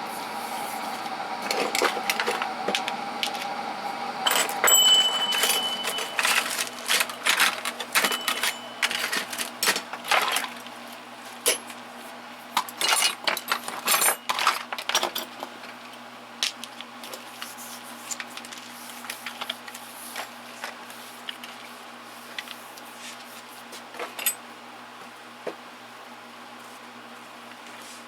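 Small metal tool sockets clinking and clattering as they are handled and sorted, a dense run of sharp clinks through the first half, then only a few scattered clicks.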